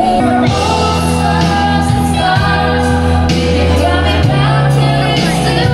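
Music with singing over long held bass notes, which change pitch twice.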